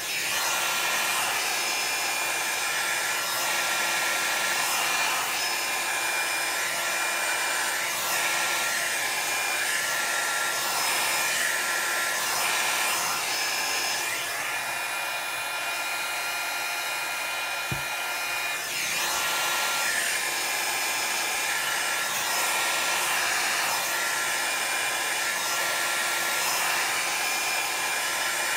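Small handheld hot-air blower running steadily, a constant airy rush with a high motor whine, used to push and dry alcohol ink on the paper.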